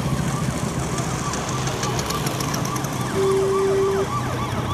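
A siren going in a fast repeating rise-and-fall, with a single horn blast of under a second about three seconds in, over the low running of passing classic car and scooter engines.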